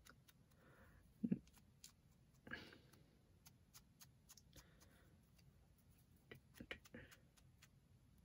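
Faint handling noises from an ink blending tool being fiddled with in the hands: a soft knock about a second in, a brief rustle, and a few light clicks near the end.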